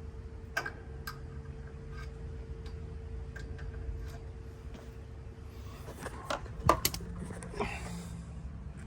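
Scattered sharp clicks and light knocks of tools and metal fittings being handled over a steady low hum, with a faint steady tone that fades out about six seconds in. A cluster of louder clicks comes between about six and seven seconds.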